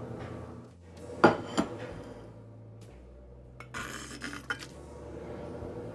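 Two sharp clinks of metal bowls a little over a second in. A few seconds later comes a short clatter as chopped strawberries are tipped from a stainless steel bowl into a saucepan.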